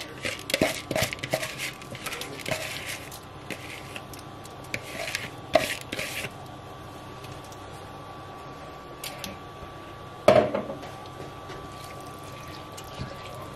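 Washed rice being tipped from a plastic bowl into a pot of tomato stock, with a run of short clicks, taps and wet squishing over the first six seconds. After a quieter stretch, a wooden spoon knocks loudly against the pot about ten seconds in as the rice is stirred into the liquid. A faint steady high tone runs underneath.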